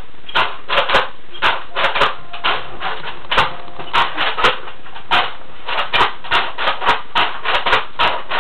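Irregular plastic clicks and clacks, two to four a second, from a toy dart blaster being handled and worked.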